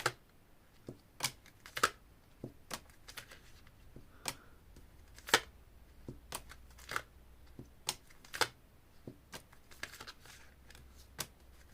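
Tarot cards being handled and shuffled: irregular sharp clicks and snaps of card against card, roughly two a second and uneven, over a faint low hum.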